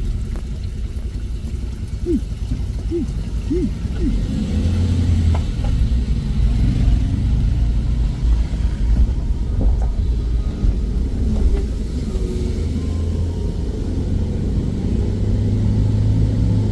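Car driving on a mountain road: a steady low rumble of engine and road noise, with the engine note rising near the end.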